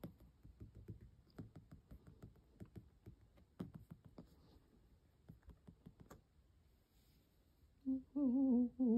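Faint scattered clicks and light rustling, then about a second before the end a person humming a wavering, rising-and-falling tone.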